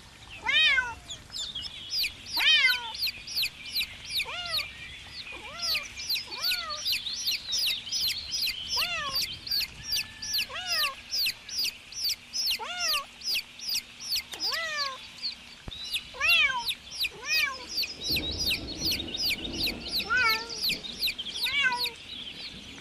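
Several young chicks peeping non-stop, a rapid stream of high, falling peeps. Through them, a kitten meows over and over, about once a second. Near the end there is a brief low rustle.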